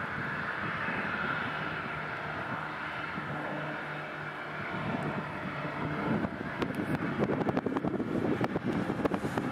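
Boeing 737-800's CFM56 jet engines at low thrust, a steady whining hiss as the airliner taxis and turns. About six seconds in, wind starts buffeting the microphone with gusty crackling.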